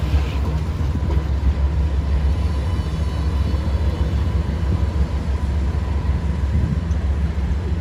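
Alstom Citadis X05 low-floor tram moving slowly past at close range: a steady low rumble, with a faint high whine in the middle.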